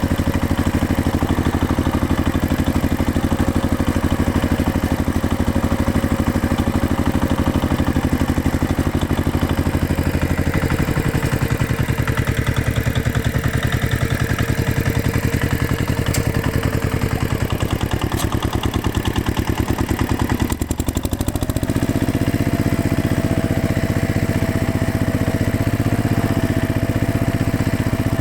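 Tractor engine running steadily under a low, even throttle. About ten seconds in its speed eases down slightly; about three-quarters of the way through it dips briefly, then picks up to a higher, steady speed.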